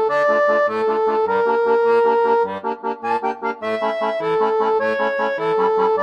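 Background music: an accordion playing a held melody over a steady alternating bass-and-chord accompaniment.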